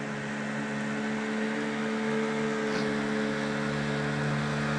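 Motorboat engine humming steadily, slowly growing louder as it approaches.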